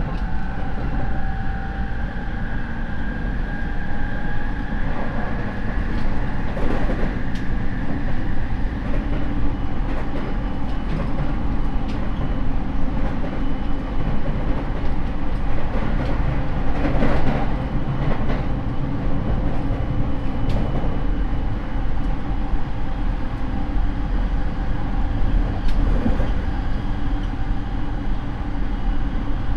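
Rinkai Line 70-000 series electric train with a Mitsubishi IGBT inverter and MT73 traction motors, heard from inside the car running at speed: a steady rolling rumble, with a high motor whine that rises slightly over the first few seconds and then fades. A few rail-joint knocks come through.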